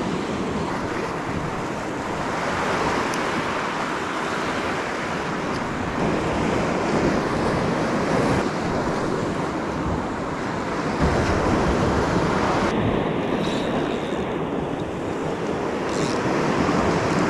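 Ocean surf breaking and washing over a rock ledge, a steady rushing, with wind buffeting the microphone.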